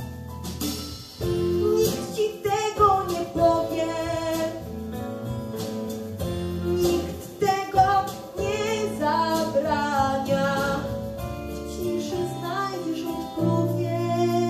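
A girl singing a pop ballad into a microphone over instrumental accompaniment, holding and bending long notes.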